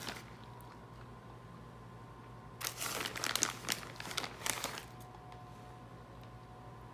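Plastic bag of shredded mozzarella crinkling in a short run of crackly bursts, about three to five seconds in, as cheese is shaken out of it onto a baking dish. A low steady hum runs underneath.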